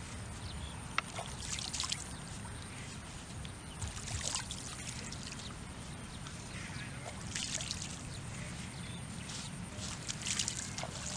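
Hands splashing and scooping in shallow, muddy ditch water while feeling for fish, in short bursts every few seconds.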